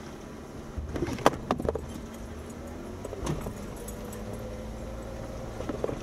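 A Jeep Wrangler Rubicon's engine runs low while crawling over off-road ruts, its note climbing and then holding. A burst of sharp knocks and jangling rattles comes about a second in, and another knock a couple of seconds later, as the vehicle jolts over the ruts.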